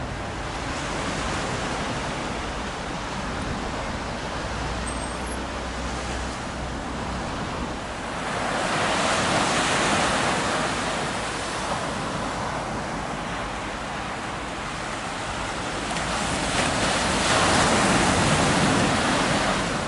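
Surf breaking on a sandy beach: a steady rush of waves that swells louder about eight seconds in and again near the end.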